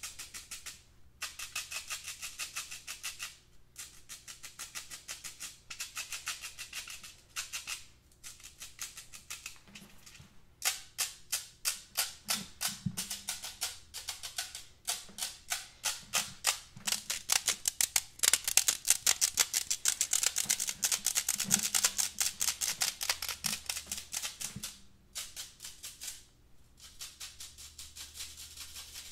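Fingernails scratching the sides of a metal mesh pen holder: rapid, raspy strokes in runs broken by short pauses. The strokes quicken about ten seconds in and are loudest a little past the middle.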